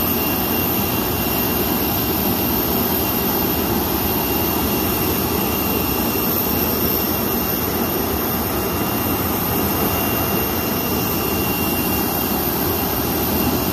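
Steady jet turbine noise from aircraft on the apron: a loud, even rush with a thin high whine that does not change in level.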